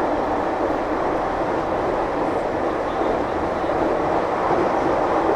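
A train running on the rails: a steady, dense rumble of the cars rolling past, with no horn and no clear clickety-clack beat.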